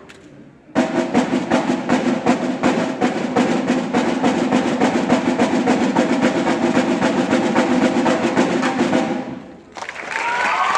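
Drums played in a fast, continuous run of strokes, like an extended drum roll across the kit, starting about a second in and cutting off suddenly near the end. Crowd cheering and applause rise right after it stops.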